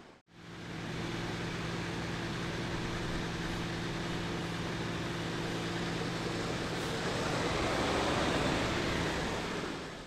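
Outdoor city background noise: a steady low engine drone over a wash of traffic noise, building a little around eight seconds in and easing near the end.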